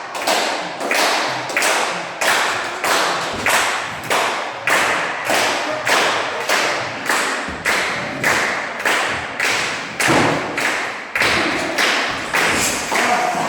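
Audience beating out a steady rhythm in unison, about two thuds a second, each echoing briefly in the hall.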